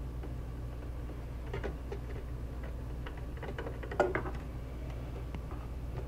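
Screwdriver backing out a small screw from behind an all-in-one computer's stand: faint ticks and scrapes, with one sharp click about four seconds in, over a steady low hum.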